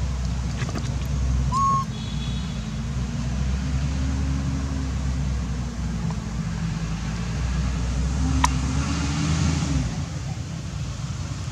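Low rumble of a running engine, its pitch wavering slightly. A short high chirp comes about two seconds in, and a sharp click comes past the middle.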